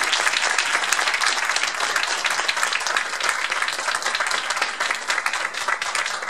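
Audience applauding: many people clapping densely and steadily, easing slightly toward the end.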